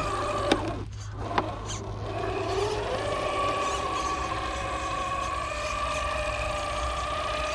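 Whine of a radio-control scale crawler truck's electric motor and gearbox as it crawls over rough ground. The whine drops out briefly about a second in, between two sharp clicks, then rises again and holds steady.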